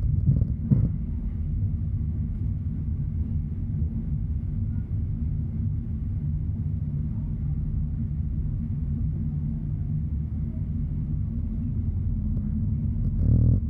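ED4M electric multiple unit running along the line, heard from inside the passenger car as a steady low rumble of the running gear. A couple of short knocks come about a second in, and the rumble swells briefly near the end.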